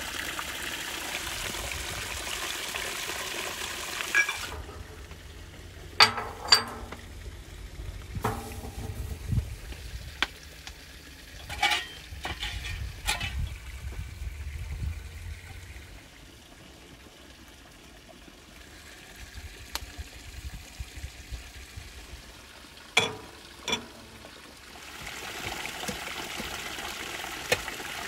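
Spring water pouring steadily from a stone spout onto rocks and into a cast-iron kettle. After about four seconds it gives way to a wood fire burning in a stone oven, a low rumble broken by sharp knocks and scrapes as a metal peel works inside, and near the end the running water comes back.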